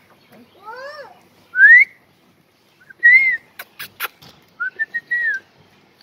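Indian ringneck parakeet whistling: a rising swoop, then a loud upward-sliding whistle, then several short arched whistle notes, with a few sharp clicks about midway.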